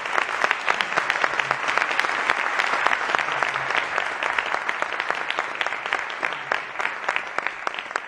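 Audience applauding, a dense patter of many hands clapping that eases off a little near the end.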